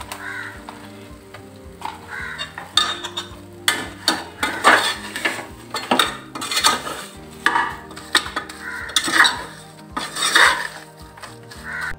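A steel spoon stirring and scraping around the inside of a pressure cooker in irregular strokes, with onions and spice powder sizzling in oil and ghee.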